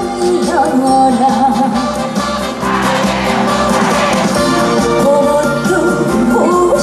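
Live Korean trot song: a woman singing a melody over amplified band accompaniment.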